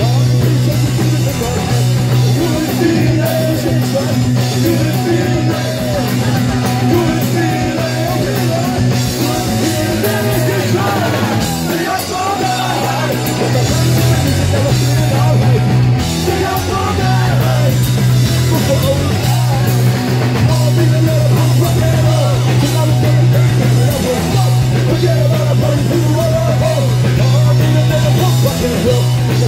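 Punk rock band playing live: distorted electric guitars, bass and drums at full volume, with vocals sung into the microphone.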